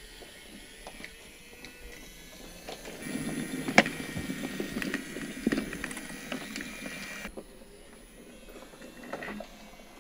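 A small motorised toy train running on wooden track: a steady motor whine over the clatter of its wheels on the track joints. It starts about three seconds in and stops suddenly about four seconds later, with faint clicks of track and toys before and after.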